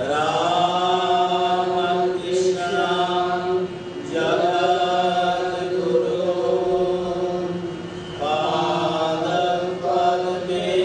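A group of men chanting a devotional song to harmonium accompaniment, the harmonium holding a steady drone beneath the voices. A new sung phrase begins about every four seconds.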